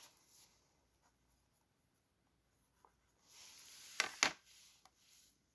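A person breathing in at a glass of bourbon while tasting, a breathy intake about three seconds in with two sharp clicks at its peak, then a shorter, fainter breath.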